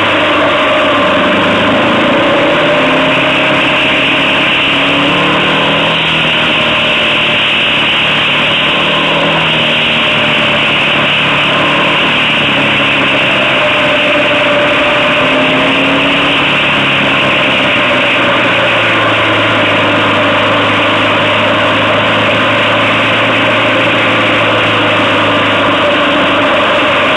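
Motorcycle engine heard from the rider's onboard camera, its pitch rising and falling as the revs change, steadier near the end, over a steady rush of wind on the microphone.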